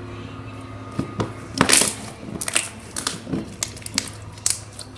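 Slime being squished and stretched in the hands, making irregular crackling pops and clicks, the loudest a little under two seconds in.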